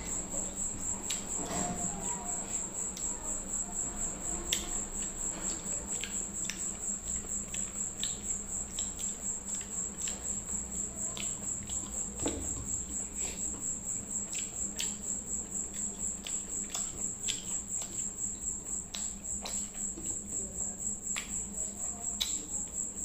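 Eating with the hand: fingers mixing and picking up rice and soya-chunk gravy on a plate, with irregular short clicks of chewing and lip smacks. A steady high-pitched trill and a low hum run behind it.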